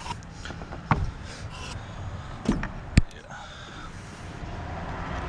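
A few sharp clicks and knocks from spark plugs and ignition coil parts being handled, the loudest about three seconds in, over a low steady background rumble.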